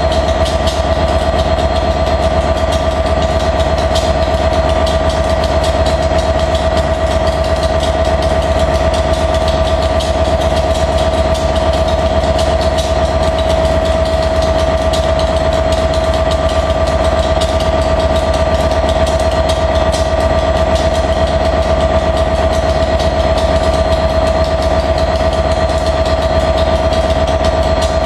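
Class 67 diesel-electric locomotive's EMD two-stroke V12 engine idling at a standstill, a steady rumble with a constant high whine over it.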